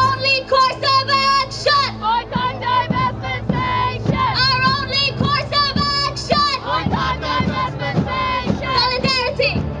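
A woman's high, strained voice chanting a protest slogan through a microphone and loudspeakers in short shouted phrases, over a steady low hum.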